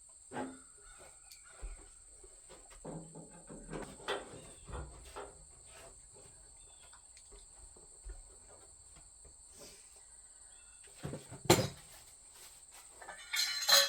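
Scattered light clicks and knocks of metal smoker parts being handled during assembly, with a louder knock about eleven and a half seconds in and a short rattle near the end. A steady high cricket trill runs underneath.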